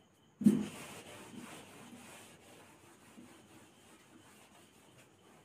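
Whiteboard being wiped clean with an eraser: a sudden first swipe about half a second in, then rubbing strokes that fade away over the next couple of seconds.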